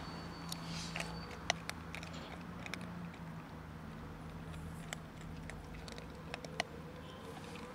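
Two kittens crunching dry kibble, a run of irregular sharp crunches and clicks. Underneath is a steady low engine hum, with a faint pitch that rises slowly in the second half.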